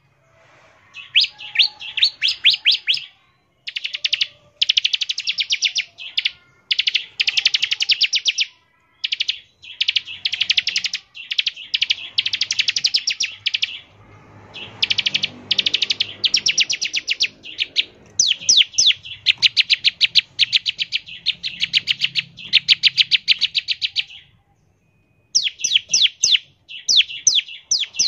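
Bar-winged prinia (ciblek) singing its rapid rattling 'ngebren' song: repeated bursts of one to two seconds of very fast, high, dry notes, with short pauses between them.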